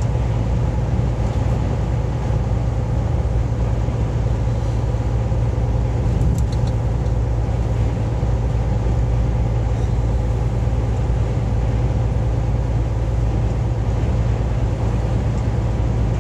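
Steady low drone of engine and tyre-on-road noise inside a vehicle's cab cruising at highway speed, with a few faint high ticks about six seconds in.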